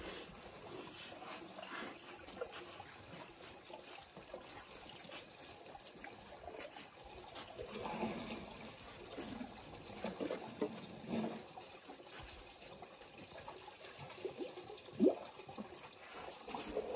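African elephants drinking at close range: water trickling and splashing as their trunks draw it up and let it out, with scattered short wet sounds. A brief, louder rising sound comes about fifteen seconds in.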